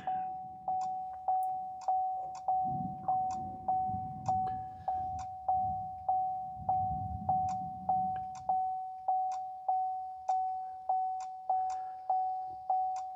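Pickup truck's instrument-cluster warning chime dinging steadily about every 0.6 seconds, each ding fading before the next.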